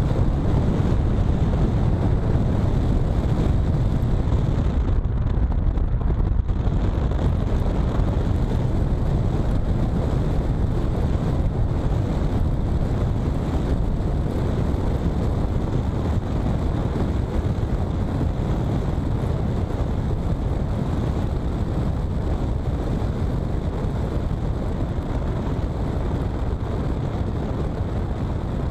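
Steady road noise inside a moving car's cabin: the low rumble of the car with tyres running on a wet road.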